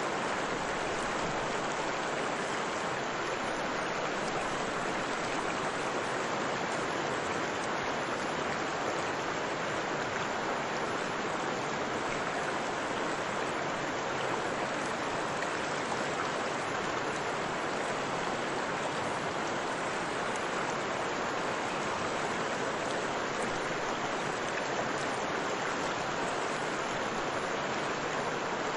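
River water rushing steadily, an even hiss with no separate splashes or changes.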